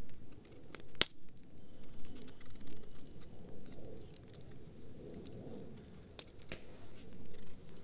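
Small knife peeling a raw potato by hand: soft scraping cuts and little clicks as strips of peel come away, with a sharper click about a second in.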